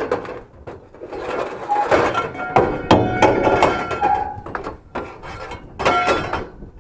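Scrap metal clanking and knocking as it is lifted and shifted, with a run of knocks and short metallic rings near the middle.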